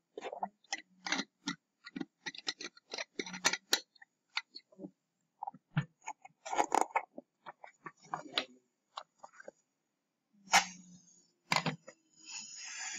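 Irregular clicking and tapping of computer keyboards and mice, with a few duller knocks and a short rustle near the end.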